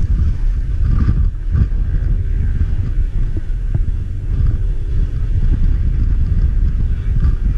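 KTM adventure motorcycle's V-twin engine idling, a loud steady low rumble.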